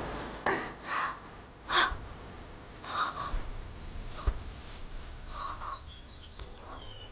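A bird calling in short calls, about seven of them, each a fraction of a second, spaced irregularly a second or so apart.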